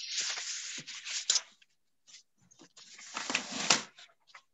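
Rustling and scraping close to a computer microphone, in two bursts of about a second each with a few light clicks between them.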